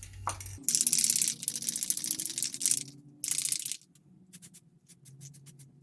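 Two bursts of fast rattling clicks, a longer one and a short one, followed by a few scattered single clicks.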